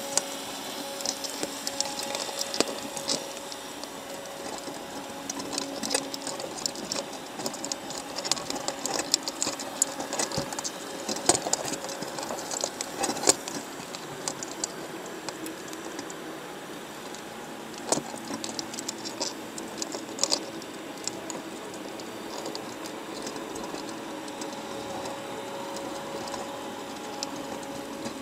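Underwater sound of crabs crowding a wire trap: their shells and legs click, tap and scrape against the wire and each other, heard as quick irregular clicks and crackles in flurries over a steady hiss.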